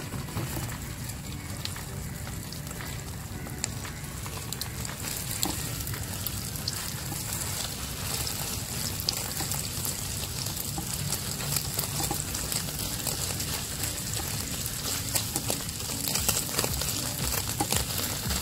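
Beaten egg yolk frying in hot oil in a non-stick pan: a steady sizzle with many fine crackles. Partway through it is broken up and stirred with a silicone spatula.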